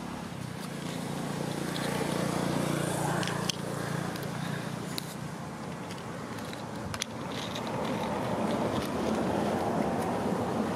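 A motor vehicle's engine humming steadily, giving way to a louder rushing noise in the second half, with two faint clicks.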